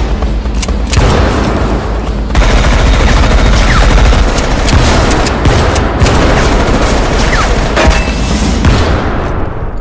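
Rapid automatic-rifle gunfire, a film shootout's sound effects: dense, loud, overlapping shots that die away near the end.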